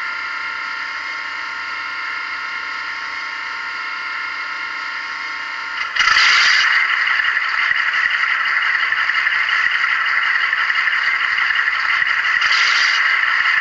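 Model diesel locomotive's DCC sound decoder playing a Class 52 Western's twin Maybach engines through a small onboard speaker. One engine idles steadily. About six seconds in, the second engine fires up and the sound steps up louder, with a brief hiss at that moment and another near the end.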